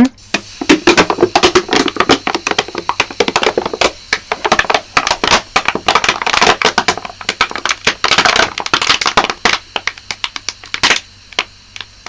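A plastic drink bottle crackling and popping as it crumples in on itself, sucked flat by a refrigerator compressor working as a vacuum pump. The crackles come thick and fast and die away about eleven seconds in.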